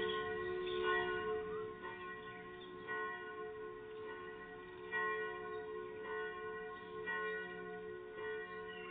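Church bells ringing: several bells struck again and again, their long humming tones overlapping and swelling with each new stroke.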